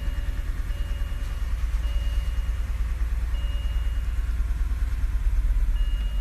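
BMW E90 325i's N52 inline-six engine idling unevenly: it is still misfiring.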